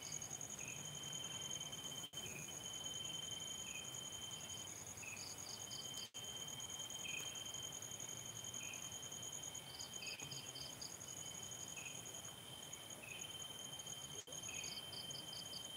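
Crickets and other night insects trilling steadily, with a softer chirp repeating about once a second.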